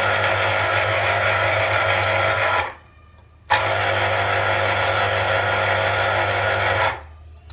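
Electric citrus juicer's motor humming steadily as half an orange is pressed onto its reamer cone. It cuts out for under a second about three seconds in and again near the end, when the pressure is eased, and restarts when the fruit is pressed down again. The cone turns both clockwise and anticlockwise.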